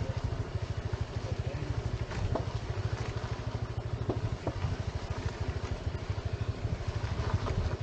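Motor scooter riding along a dirt road: a steady, low, rapidly pulsing rumble of the engine and travel.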